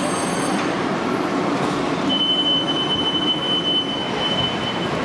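H0-scale model train running on the layout, with a steady rolling noise. About two seconds in, a thin high whine starts and holds steady for nearly three seconds.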